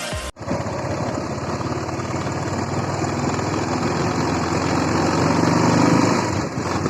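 Motorcycle engine running steadily while riding, slowly getting louder.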